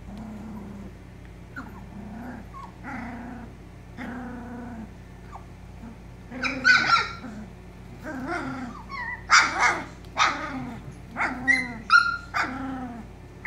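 Several poodle puppies barking and growling at each other as they play-fight, in short repeated calls that grow louder and busier about halfway through.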